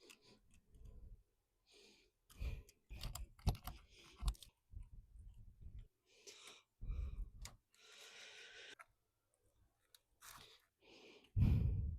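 Handling noises from working a window screen frame and mesh while pressing rubber spline into the frame's channel: irregular clicks, crinkles and light knocks, with a louder knock near the end.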